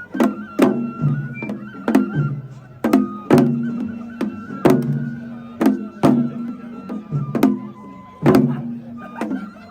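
Japanese festival music: drums struck in a steady rhythm, each hit ringing with a low pitch, under a high flute melody.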